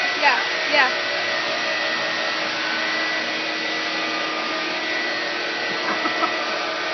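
Steady cabin noise inside a car: a constant rushing hiss with a faint hum underneath.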